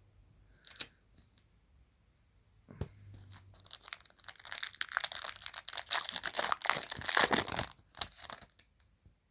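A trading card booster pack wrapper being torn open and crinkled. A few light clicks come first, then a dense stretch of tearing and crinkling starts about three and a half seconds in and lasts about four seconds.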